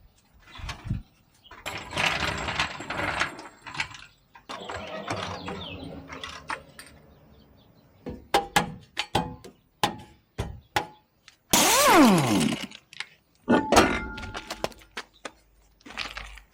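Metal tools and car suspension parts being handled: scraping and rattling, a run of sharp clicks and knocks, one loud scrape that falls in pitch, and a clatter with ringing metal.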